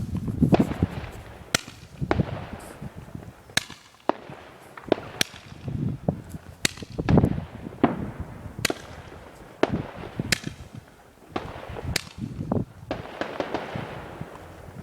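Roman candle (Danish romerlys) firework firing shot after shot: sharp cracks about one a second, uneven in spacing, with duller thumps and crackling among them.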